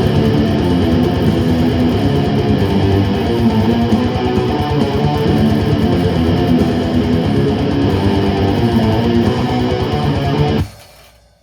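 Band jamming, led by a strummed electric guitar, playing loudly and then stopping abruptly near the end.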